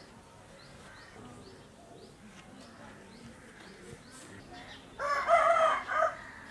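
A rooster crows once near the end, a loud cock-a-doodle-doo of a little over a second that breaks briefly before its last note.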